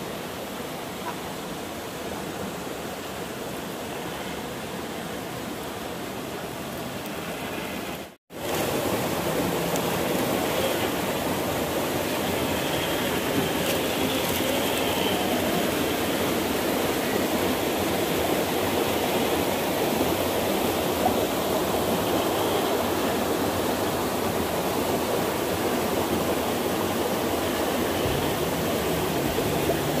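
Steady rush of flowing water, a noisy hiss with no clear tone. It cuts out briefly about eight seconds in and comes back louder.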